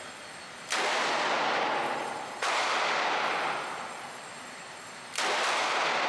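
Handgun shots: one about a second in, another under two seconds later, then two in quick succession near the end, each followed by a long echoing tail.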